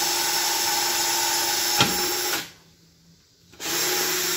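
Electric hand drill running a long 5/32-inch bit through drill guides in a VW engine case, drilling a pilot hole in the aluminium back plate in line with the crankshaft. It runs steadily, stops a little past halfway for about a second, then starts again.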